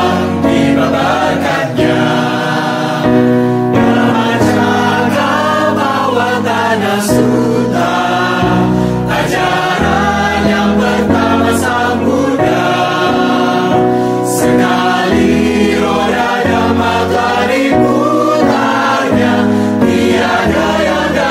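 Mixed choir of men and women singing a Buddhist devotional song, holding long chords over low bass notes that change every second or two.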